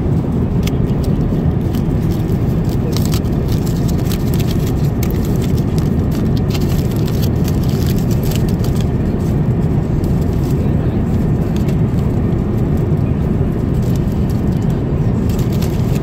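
Steady airliner cabin noise in flight: a loud, even low rush. Over it, aluminium foil crinkles in bursts as the foil wrap of a hot in-flight meal tray is handled and pulled off, mostly in the first half.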